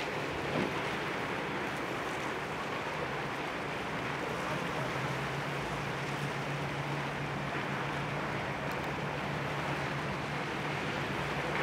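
Austal 48 m high-speed catamaran ferry's MTU diesel engines giving a low, steady hum across the water as it gets under way from its berth, mixed with a constant rush of water and wind; the hum grows stronger about five seconds in.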